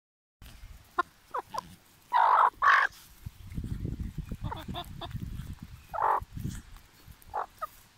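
Bresse chickens calling in short squawks and clucks, with two loud, harsh squawks about two seconds in. A low rumbling noise runs under the middle stretch.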